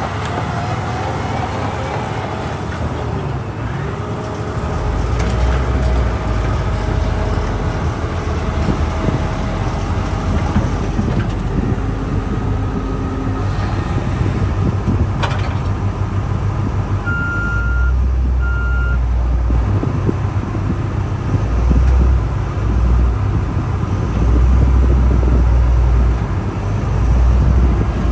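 Diesel engine of a Dynapac SD2500CS asphalt paver running, a steady heavy rumble that swells louder several times, as with the machine working or moving. Two short high beeps come a little past halfway, like a warning signal.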